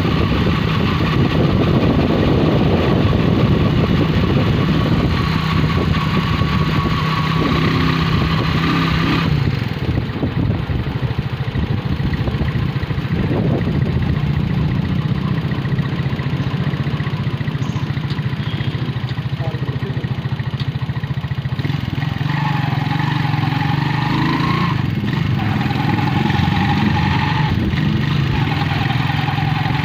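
Small vehicle engine running steadily while driving along a street, heard from on board. The sound changes abruptly about nine seconds in, after which it continues.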